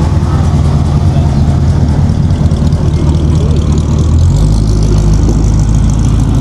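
Loud, steady low engine rumble of a car, its deepest note dropping about four seconds in.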